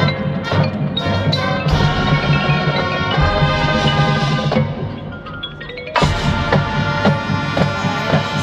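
High-school marching band playing its field show: sustained chords with sharp accents and mallet percussion from the front ensemble. The music eases off about five seconds in, then the full band comes back in loud at about six seconds.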